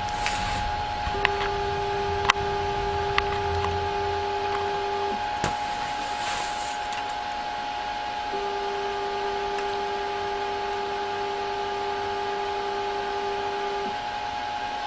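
Hitachi U-2000 spectrophotometer running a scan: a steady hum, joined by a whine holding one pitch for about four seconds near the start and again for about five and a half seconds from the middle. A few sharp clicks come in the first six seconds.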